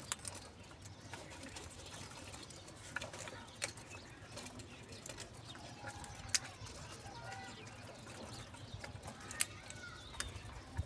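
Faint bird calls, with a few sharp clicks scattered through.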